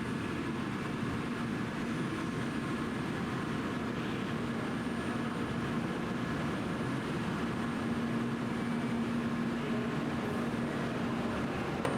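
Steady background noise of a Tokaido Shinkansen platform, with a low electrical hum that fades out for a few seconds and comes back about halfway through. No single event stands out.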